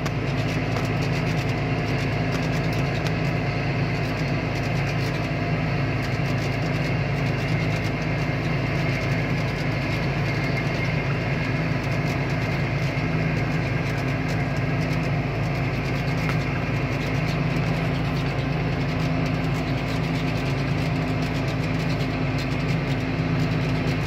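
John Deere tractor engine running steadily, heard from inside the cab as an even, low drone that does not change in pitch or loudness.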